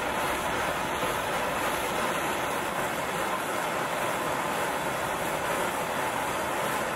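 Handheld gas blowtorch burning with a steady rushing hiss as its blue flame heats a pair of disc brake pads, burning off the contamination that makes them squeal.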